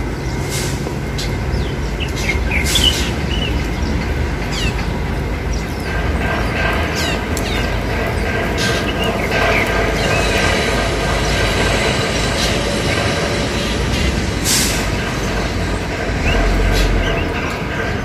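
Wild drongo calling: scattered short, sharp whistled notes and chirps. They sit over a steady rumbling background noise.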